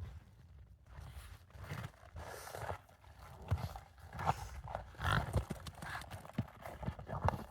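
Kunekune pigs eating, with irregular chomping and smacking and low grunts.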